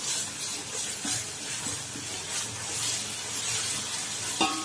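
Ginger-garlic paste frying in oil with browned onions, green chillies, coriander and mint in a metal pot: a steady sizzle, with a spoon stirring and scraping through the mixture.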